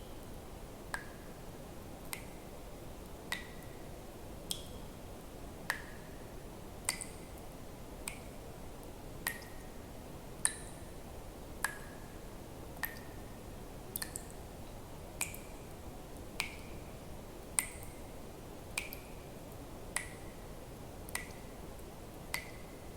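Water drops falling one at a time into water in an even drip, about one every 1.2 seconds. Each is a short plink whose pitch shifts a little from drop to drop, over a faint steady hiss.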